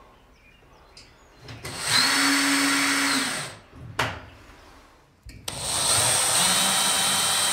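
DeWalt cordless drill run twice at steady speed, about two seconds each time, fastening a metal ceiling channel to a wooden beam overhead. A sharp click comes between the two runs.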